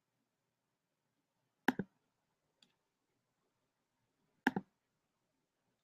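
Two double-clicks of a computer mouse, about three seconds apart, with a faint single click between them.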